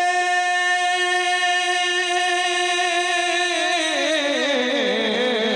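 Male naat reciter singing. He holds one long note for about three and a half seconds, then slides down in a wavering run near the end.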